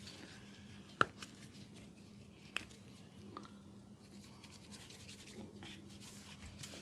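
Hands rubbing and kneading oiled skin in a massage, a soft, faint rubbing, broken by two sharp clicks, one about a second in and one about two and a half seconds in.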